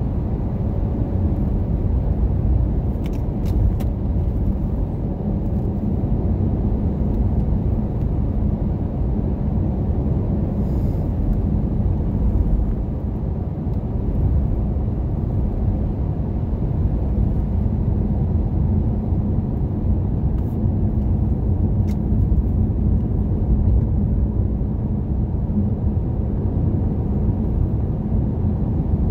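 Car driving on a paved road: a steady low rumble of tyre and engine noise, with a faint hum. A few faint clicks come early on and again about two-thirds of the way through.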